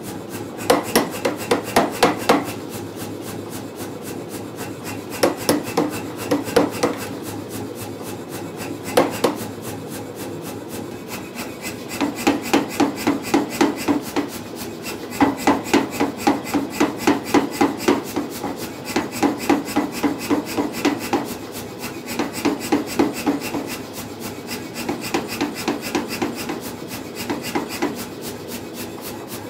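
Power hammer striking a hot steel bar in repeated runs of rapid, evenly spaced blows, each run lasting a second or two, with short pauses between.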